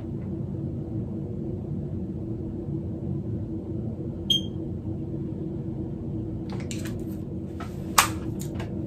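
A steady low hum fills a small, quiet room. A single short high beep sounds about four seconds in. Near the end come a few light clicks and knocks as a flat iron is handled, the loudest a sharp click about eight seconds in.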